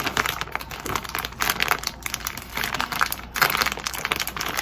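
Plastic bag of brown sugar crinkling as hands grip and work at it: a dense, irregular run of crackles, loudest about a second and a half in and again a little past three seconds.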